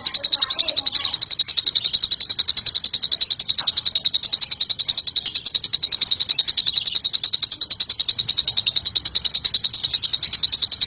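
Cucak ijo (greater green leafbird) singing a high, fast, evenly pulsing trill without a break, its learned imitation of the cililin's song.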